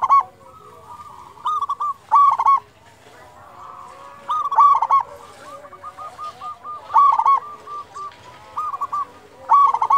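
Zebra dove (perkutut) cooing: a series of loud phrases of quick repeated coo notes, with a longer run of short notes in the middle.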